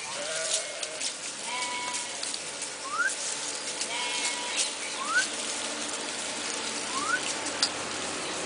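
Goats and sheep of a grazing flock bleating now and then. A short rising whistle sounds three times about two seconds apart, over scattered light clicks and rustles.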